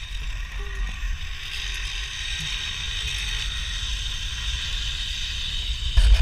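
Zip-line ride: the trolley's wheels run along the steel cable with a steady whirring hiss that builds over a few seconds, over wind rumbling on the microphone. A few loud knocks come right at the end.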